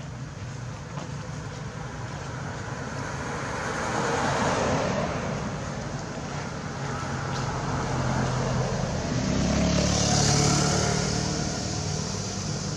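Road traffic: vehicles passing by, one swelling past about four seconds in and a louder one with a low engine hum passing around ten seconds in.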